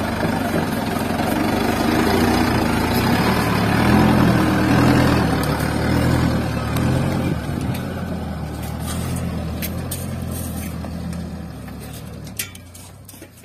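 Mitsubishi Colt Diesel dump truck's turbo-intercooled diesel engine working hard under load as the truck pulls out of a soft sand pit and climbs a sandy track. It is loudest a few seconds in, then fades as the truck drives away.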